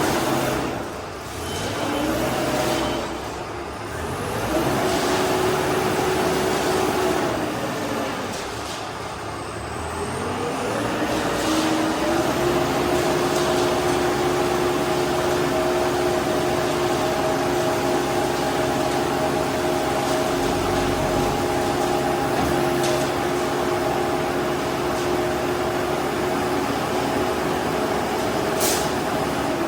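Diesel engine of a self-loading concrete mixer running. It revs up twice, then holds at a steady, higher speed for the rest of the time.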